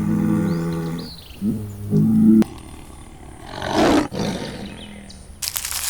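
A large animal's low-pitched calls: two drawn-out calls in the first two and a half seconds, the second cut off abruptly, then a short breathy burst about four seconds in and a rasping hiss starting near the end.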